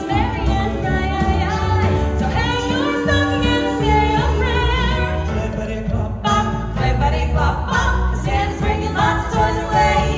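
A vocal group sings a Christmas song over backing music with jingling sleigh bells.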